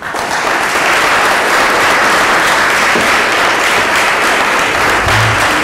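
Audience applauding: many hands clapping together, starting suddenly and holding steady.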